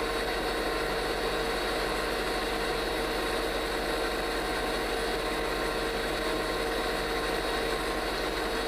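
A machine running with a steady, even hum that holds one constant pitch.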